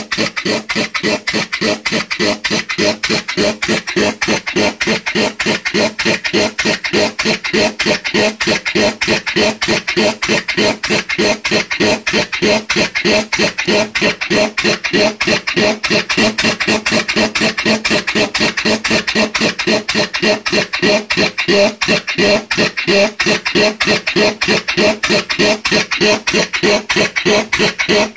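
Briggs & Stratton single-cylinder engine converted to a steam engine, running on compressed air: a fast, steady chuff of air exhausting with each stroke, about five puffs a second, mixed with mechanical clatter.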